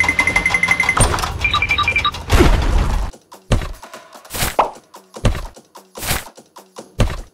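Music with quick electronic beeps for about three seconds, then five separate light knocks about a second apart as toy grapes are set down into a pink plastic tray.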